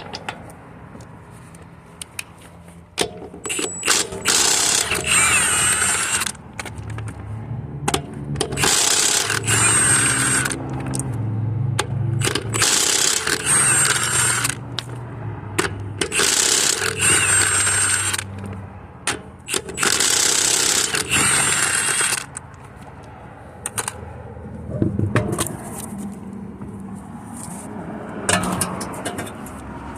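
Power impact wrench with a 17 mm socket spinning off a Volkswagen Tiguan's wheel bolts, in five loud runs of about two seconds each with short trigger blips between them.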